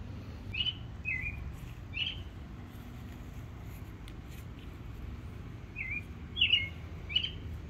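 Small birds chirping: about six short chirps, three in the first two seconds and three more near the end, over a steady low background noise.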